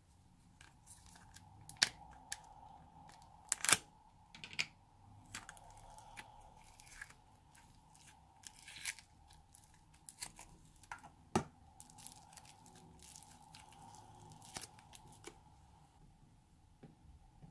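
Sticky slime squelching and crackling as a finger pushes it out of a clear plastic tub, with a few sharp pops, the loudest about two, four and eleven seconds in. A faint steady hum runs underneath.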